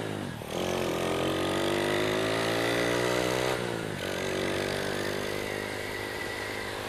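Honda Astrea Grand's single-cylinder four-stroke engine accelerating through a freshly gutted and rebuilt Honda Supra FI muffler with a dense-bass core. The revs climb, drop sharply at a gear change just after the start and again near four seconds in, then run steadier. The owner says the new exhaust's sound has not yet settled in.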